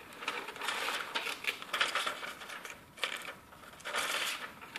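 Scissors snipping through a sheet of paper, with the paper rustling and crinkling as it is handled, in several short uneven spells.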